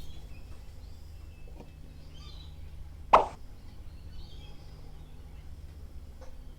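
A single short, sharp tap about three seconds in, over a steady low hum, with a fainter tick near the end.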